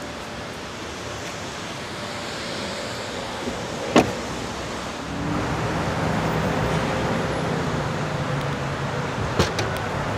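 Outdoor traffic noise with a vehicle engine running close by, louder and steadier from about five seconds in. A single sharp knock comes about four seconds in, and a few light clicks near the end.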